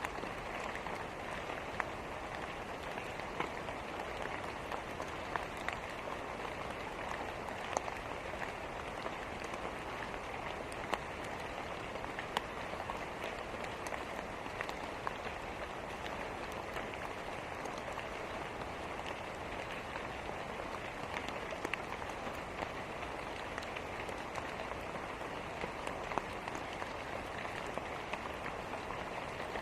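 Steady rain falling, an even hiss with scattered sharp clicks and ticks throughout.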